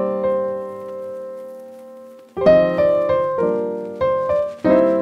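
Piano music: a held chord fades for about two seconds, then fresh chords are struck roughly every half second.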